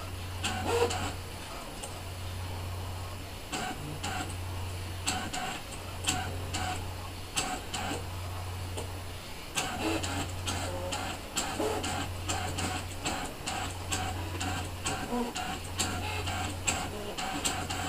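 Brother ScanNCut cutting machine drawing with a pen: its motors hum in runs of one to two seconds with brief pauses between, as the carriage and mat move, with light clicks and ticks over the hum.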